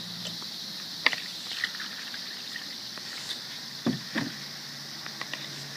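A few light knocks and clicks, about a second in and twice around four seconds in, over a steady hiss. These are typical of containers being handled during a homemade baking-soda-and-vinegar volcano.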